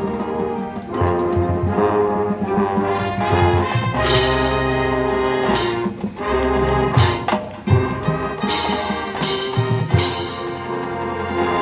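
High school marching band playing live: sustained brass chords with trombones and trumpets, punctuated by several loud accented hits with cymbal crashes from about four seconds in.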